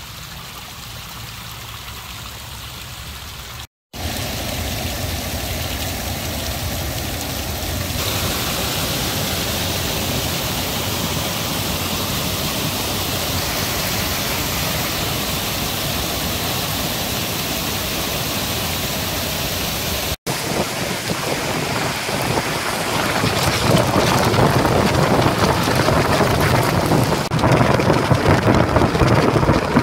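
Floodwater rushing over rock ledges in a wadi, then, after a cut about four seconds in, a steadier and louder rush of a muddy flood pouring over a ledge in a broad waterfall. About twenty seconds in, after another cut, a louder, rougher noise of heavy rain takes over.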